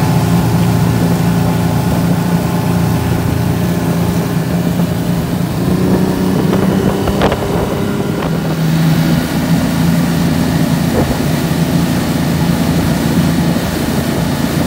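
Yamaha 225 outboard motor running steadily at speed under way, a constant drone, with rushing wake water and wind buffeting the microphone.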